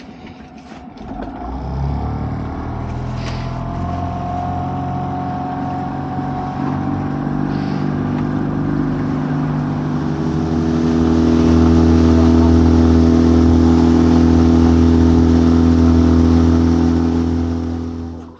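Small fishing boat's engine running under way, picking up and growing louder about ten seconds in, then holding steady until it cuts off suddenly at the end.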